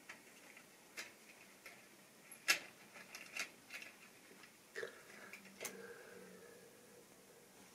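Plastic model railway wagons clicking and clacking as they are handled on the track: a handful of sharp, irregular clicks, the loudest about two and a half seconds in. A faint steady hum comes in about five seconds in and fades.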